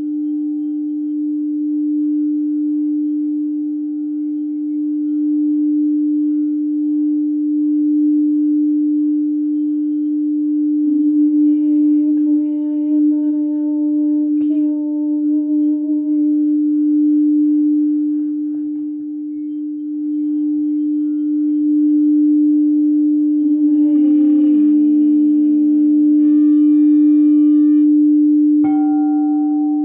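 Crystal singing bowls ringing with one strong steady hum throughout, a second, higher bowl tone joining for a few seconds about a third of the way in. Near the end other tones cluster in, one bending downward, and a light strike brings up a higher bowl tone just before the end.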